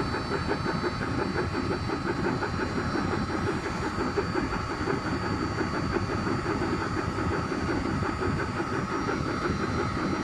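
Autonomous diesel air heater running with its burner lit: a steady combustion and fan noise with a fast, even pulse.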